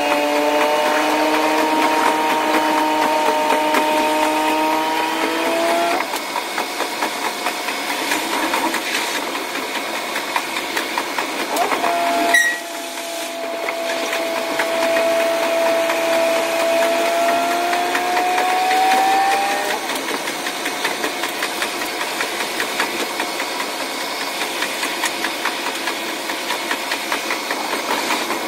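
KiHa 185 series diesel railcar running, its audio sped up: the engine note climbs slowly in pitch as the train accelerates and drops away about six seconds in. A sharp knock comes about twelve seconds in, then the engine note climbs again until about twenty seconds in, followed by a rapid even clicking of wheels over rail joints.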